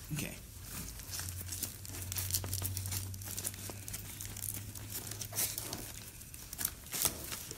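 Latex balloons being handled, twisted and tied by hand, giving a run of rubbing and crinkling crackles. A low steady hum sits underneath for most of it.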